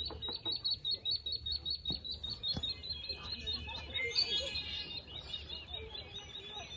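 A small bird trilling: a fast run of high, evenly repeated notes, about nine a second, easing into softer, slower notes about halfway through, over a faint low rumble.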